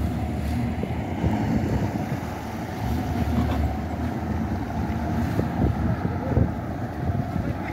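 Wind buffeting the microphone over the steady running of engines: a fishing boat's outboard motor churning the water as the boat floats off its trailer, and the pickup truck that reversed the trailer down the slipway.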